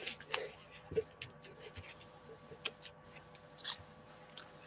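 Faint, scattered rustles and light clicks of comic books being handled and held up.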